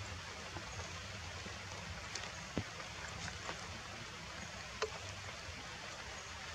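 Forest ambience: a steady even hiss with a few scattered sharp ticks, the loudest about two and a half seconds in and again near five seconds in.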